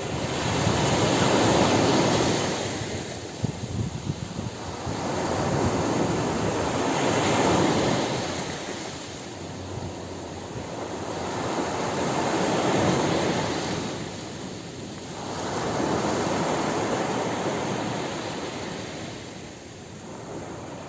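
Ocean surf breaking on a beach, waves swelling and washing back about four times, roughly every five seconds.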